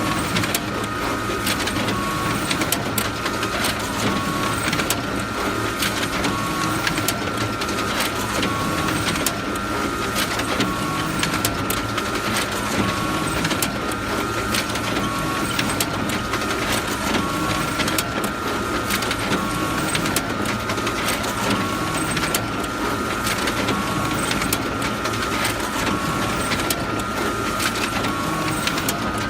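Photocopier running continuously: a steady high whine over mechanical clatter, with a feed cycle that repeats about every two seconds as copies run through.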